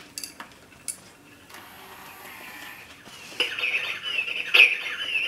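A few light clicks from the clock being handled, then, about three and a half seconds in, an Ajanta quartz cuckoo clock's built-in speaker starts playing its electronic bird chirping, a quick warbling that rises and falls.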